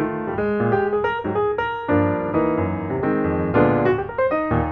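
Background piano music, single notes and chords played briskly.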